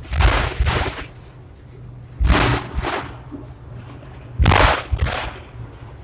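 Hong Kong double-deck tram rolling along its track, its wheels knocking over the rail joints: pairs of thumps about half a second apart, repeating roughly every two seconds, over a steady low motor hum.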